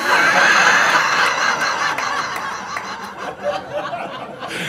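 A congregation laughing together, starting all at once and slowly dying down, with the priest laughing along.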